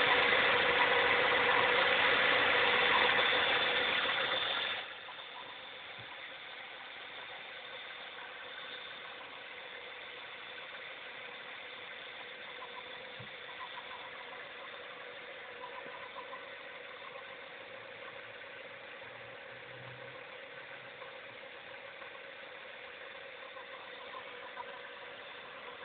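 A 1998 Ford Mustang's 3.8 L V6 engine idling, with a steady whine in it. The owner cannot trace this idle noise, which has been growing louder. The sound is much louder for the first five seconds, then drops suddenly and carries on steady.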